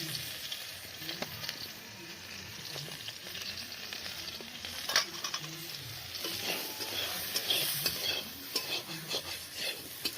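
Cauliflower florets frying in oil in a kadai, a steady sizzle, while they are stirred, with clicks and scrapes against the pan; one sharp knock about halfway through and more frequent clicks near the end.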